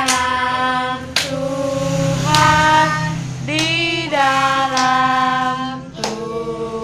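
A group of children singing an Indonesian birthday song together in long held notes, with a few sharp claps where new notes begin.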